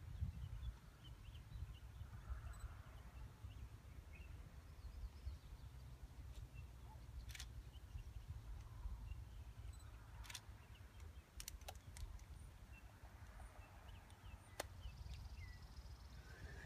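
Quiet outdoor ambience: a low rumble, with a few faint chirps and several sharp clicks scattered through it.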